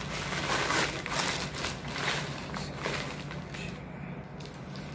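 Rustling and crinkling of a nylon drawstring bag and plastic wrapping being pulled open and handled. It is busiest in the first three seconds, then quieter, over a low steady hum.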